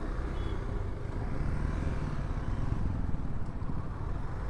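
A motorcycle engine running at low revs, a steady low rumble with outdoor traffic noise.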